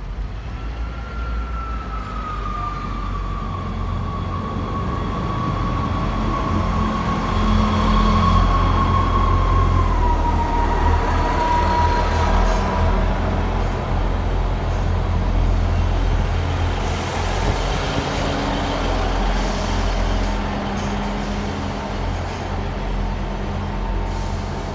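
Two coupled Class 159 diesel multiple units running in along the platform and slowing: a steady deep diesel rumble, loudest about eight to twelve seconds in. Over it, a single high whine glides slowly down in pitch during the first twelve seconds as the train slows.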